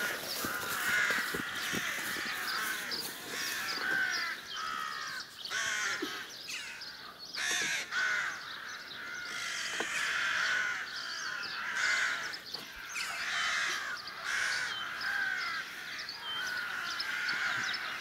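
A flock of crows cawing, many calls overlapping without a break, with a brief rustle or crack of branches a couple of times.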